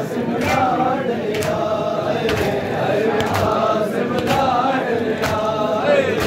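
A crowd of men chanting a noha in unison, with a sharp collective slap about once a second in time with the chant: matam, chest-beating by the mourners.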